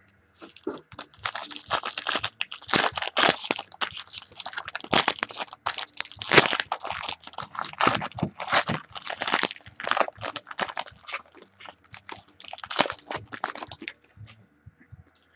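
Trading-card packaging being unpacked and handled by hand, a dense crinkling, crackling rustle that stops a little before the end.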